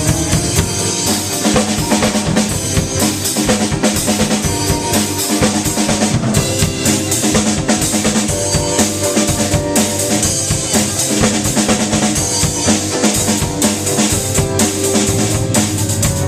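Live band playing an instrumental passage with no singing, a full drum kit driving a steady beat of kick, snare and rimshots over sustained bass and chord notes.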